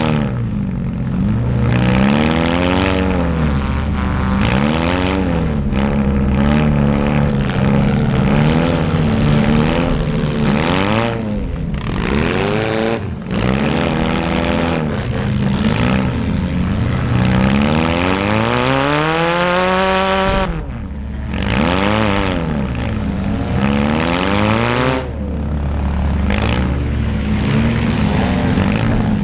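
Small demolition-derby cars' engines revving hard, the pitch rising and falling over and over as they accelerate and back off, with one long climb about two-thirds through that drops away suddenly.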